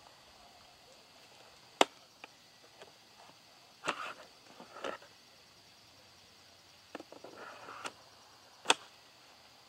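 Hard-plastic clicks and scrapes of an Oregon 40V PowerNow chainsaw's battery pack being unlatched, slid out of its bay and pushed back in. Short sliding rattles come around four to five seconds and again around seven to eight seconds. Sharp clicks come about two seconds in and near the end, the last one the loudest as the pack latches.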